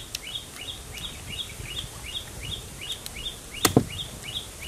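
Repeated high rising chirps, about three a second, from a bird calling steadily. About three and a half seconds in, a knife strikes into a raw palm heart with two sharp chops close together.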